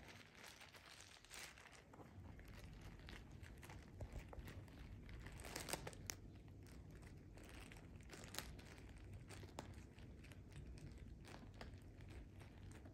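Faint, irregular crinkling and tearing of a plastic treat bag as a cat bites and paws at it, with a cluster of louder crackles about halfway through.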